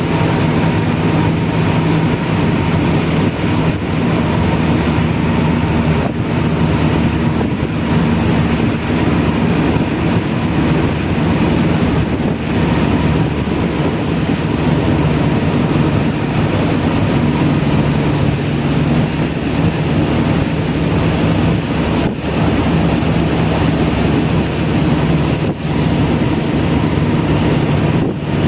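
Steady rain noise with a constant low hum underneath.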